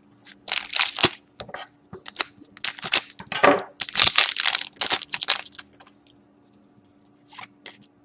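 Trading cards and their crinkly wrapper or plastic sleeves being handled by hand: a run of rustling, scraping and crinkling strokes for about five seconds, then a few more near the end.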